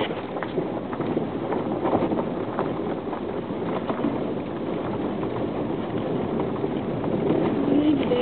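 Road noise and rattling inside a vehicle's cabin on a rough dirt track, with frequent small knocks and clatters as it bumps along.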